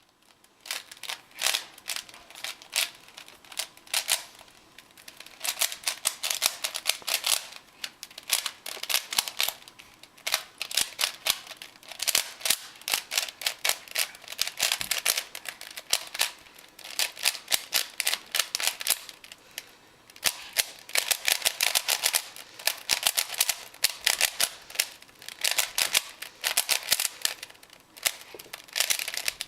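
Rubik's Cube being turned rapidly by hand in a speed solve: fast runs of plastic clicks as the layers snap round, broken by short pauses.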